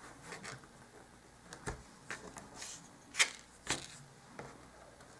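Craft knife cutting thick white cardstock along a ruler on a cutting mat: short scrapes and paper rustles with several sharp clicks and taps, the loudest about three seconds in.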